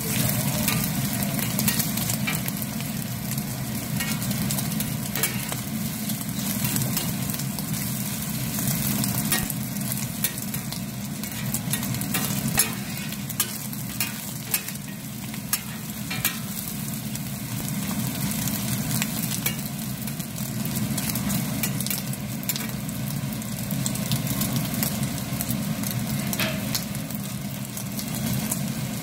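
Food sizzling on a flat iron griddle while a metal spatula scrapes and clicks against the plate, turning and pushing the pieces. A steady low hum runs underneath.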